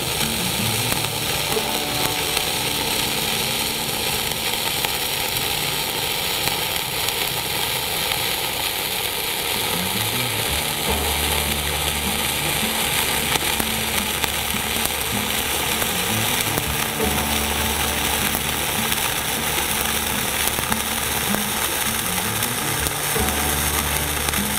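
Flux-cored arc welding with 0.045-inch dual-shield wire on steel plate: the steady crackling sizzle of the arc laying a horizontal fill bead. Low bass notes run underneath in sections.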